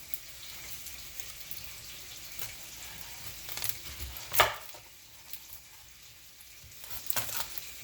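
Chicken breast searing in butter in a non-stick pan, a steady sizzle, with a few sharp knocks of a knife on a cutting board as a red onion is cut, the loudest about halfway through.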